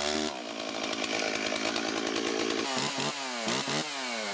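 Two-stroke chainsaw engine running at high revs, its pitch dipping and climbing back several times near the end as the engine revs down and up.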